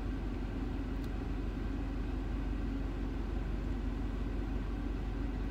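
Steady low hum of a car's interior, the sound of the vehicle running while parked.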